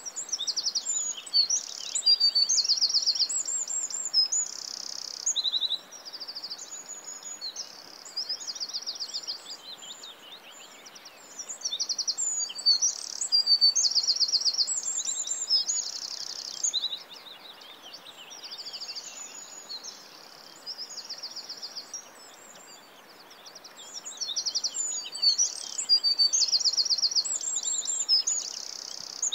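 Songbirds singing: a busy run of high chirps and fast trills, in louder stretches of a few seconds with quieter singing between them.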